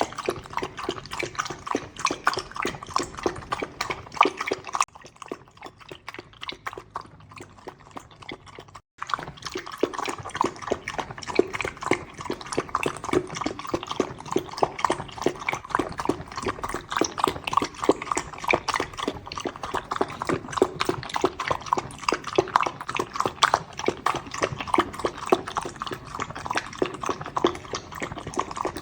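Corgi puppy lapping milk with its tongue: a fast run of wet lapping clicks that grows fainter for a few seconds about a third of the way through, then carries on steadily.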